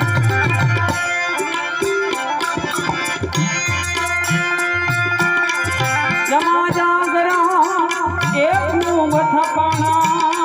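Instrumental interlude of a Gujarati devotional bhajan: tabla keeps a steady rhythm under sustained harmonium chords. A wavering melody line comes in about six seconds in.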